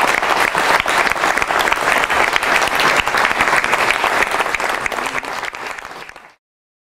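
Audience applauding, many people clapping at once; the applause fades and then cuts off to silence near the end.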